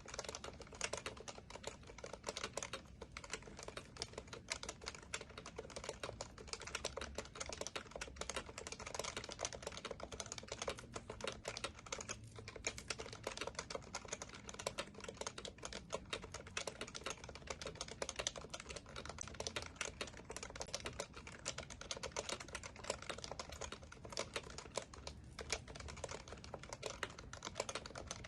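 Steady, fast typing on an HHKB Professional Classic keyboard, its Topre switches making a dense stream of keystrokes, with brief pauses about three and twelve seconds in.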